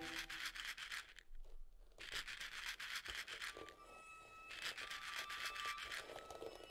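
Dried scarlet runner beans being stirred by hand on a hard surface, the beans clicking and rattling against each other in quick, dense bursts, with a pause of about a second near the start.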